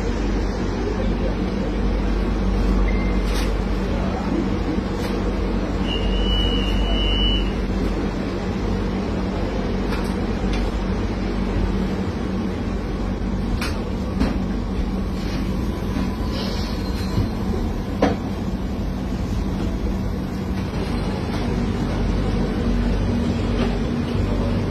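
Metro train running, heard from inside the carriage: a steady low rumble and rolling noise with occasional clicks and rattles, and a brief high squeal about six seconds in.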